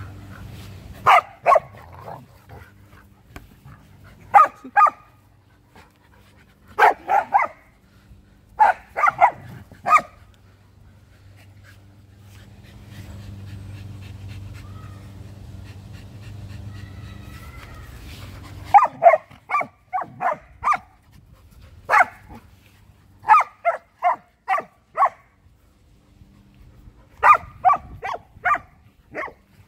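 Short, sharp dog barks in quick runs of two to five, from a Samoyed and a Keeshond in rough play. There is a longer gap with no barking in the middle.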